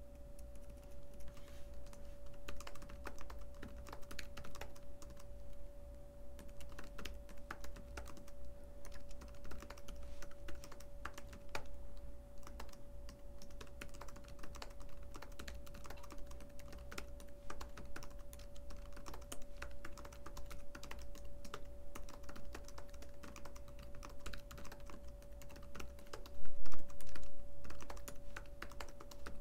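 Typing on a computer keyboard: a long run of irregular keystroke clicks, with a brief louder bump near the end.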